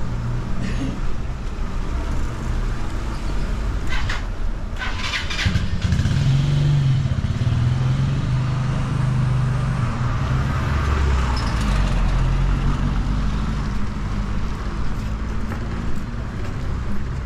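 Street traffic with a motor vehicle's engine running close by, loudest and deepest from about six to thirteen seconds in. A short run of sharp taps comes about four seconds in.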